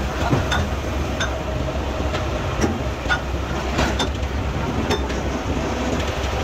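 A machine's steady low drone, with irregular light metallic clinks and knocks as a steel piston is handled in a hydraulic breaker body.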